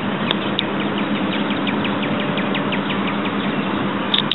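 A bird calling over and over, a quick string of short falling chirps, over a steady rushing background noise with a faint low hum.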